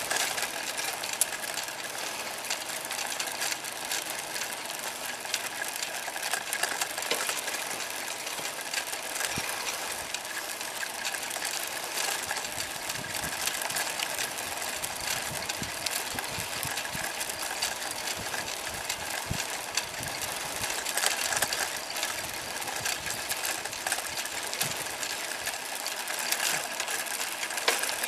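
Bicycle ride noise: the bike rattling and clicking as it rolls along, a steady hiss with many quick ticks scattered through it.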